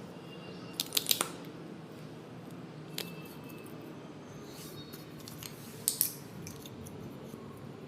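Slime and makeup being handled by hand: short sharp clicks and crackles in small clusters, about a second in, at three seconds and again near six seconds, over a steady low hum.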